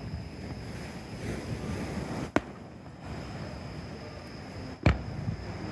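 Two fireworks shells bursting, single sharp bangs about two and a half seconds apart, the second louder, over a steady background rush of outdoor noise.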